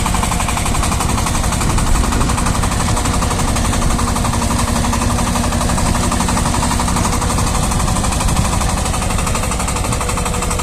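Shifeng SF-240 minitractor's single-cylinder diesel engine running under load while it pulls a rotary soil tiller through the ground. It makes a fast, even knocking beat that holds steady throughout.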